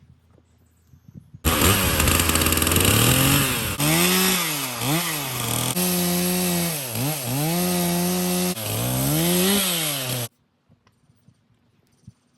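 Stihl chainsaw running at high revs and cutting wood, the engine note dipping and recovering several times as the chain bites in. It starts suddenly about a second and a half in and cuts off suddenly near the end.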